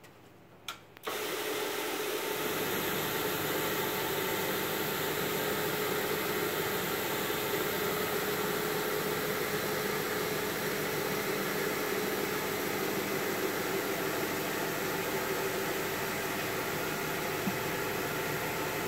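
Electric brush-type carpet agitation machine switched on after a small click about a second in, then running steadily: a constant motor whir with a steady hum, its brushes working cleaning solution into a heavily soiled carpet at the agitation stage before extraction.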